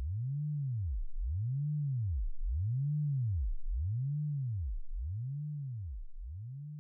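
Low electronic sine tone sweeping up and down in pitch over and over, a rise and fall about every second and a quarter. It comes in abruptly and slowly gets quieter over the second half.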